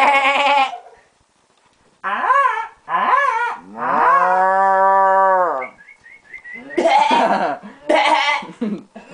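A person imitating animal calls with their voice: short rising-and-falling cries, then one long, low, cow-like call, followed by a few faint high chirps and rougher cries near the end.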